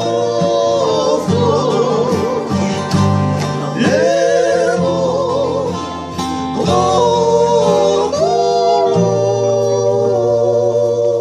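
A man singing a Tongan song with a wavering vibrato, accompanied by a strummed acoustic guitar and ukulele.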